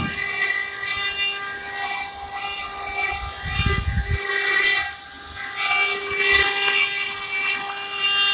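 Multi-spindle CNC stone-carving machine running: a steady high whine of several tones, with hiss that swells and fades, and a short low rumble around the middle.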